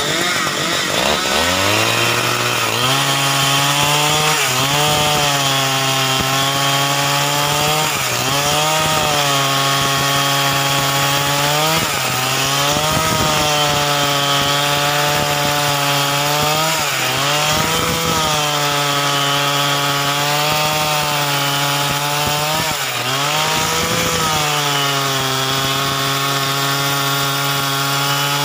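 Ogawa two-stroke chainsaw at full throttle, ripping lengthwise into the end of a large log to split it. It revs up about a second in, and its engine pitch sags under load every couple of seconds as the chain bites, then recovers.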